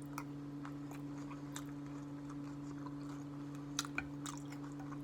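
Close-up chewing and mouth clicks of someone eating a taco, with a few small crunches; the two loudest come a little before four seconds in. A steady low hum runs underneath.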